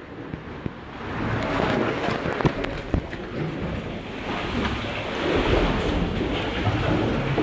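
Sea swell surging and sloshing against the rock inside a sea cave, with a deep booming rumble that the speaker likens to a subwoofer. The surge rises about a second in and again around five seconds in, with a few sharp splashes.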